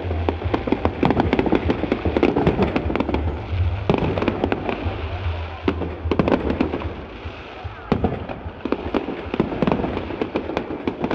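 Fireworks display: bangs of bursting aerial shells over a dense crackle. Fresh volleys start about four and eight seconds in.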